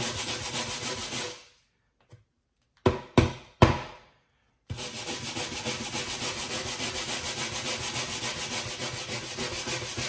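Stiff hand brush scrubbing nylon seat-belt webbing against a wooden board in quick back-and-forth strokes, about four a second. The scrubbing stops about a second and a half in, three sharp knocks come around three seconds in, and the scrubbing starts again just before five seconds.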